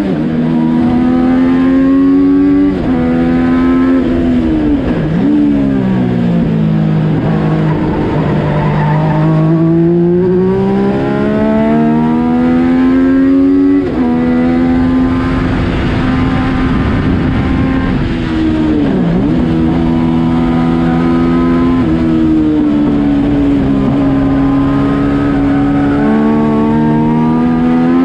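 Yamaha FZ09 three-cylinder motorcycle engine in a race car, running at high revs under hard acceleration, heard from inside the cockpit. Its note climbs, dips sharply twice and rises again, and drops suddenly on an upshift about halfway through.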